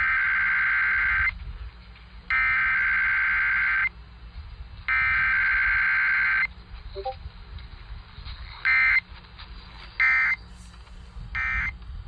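Emergency Alert System SAME data tones heard over AM radio: three warbling two-tone header bursts of about a second and a half each, then three short end-of-message bursts, with faint radio background noise between them.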